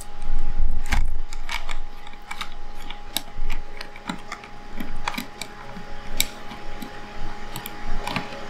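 Small, irregular clicks and taps of a precision screwdriver working a tiny screw out of a Sony A7R Mark I camera body, with a few light handling knocks in the first second.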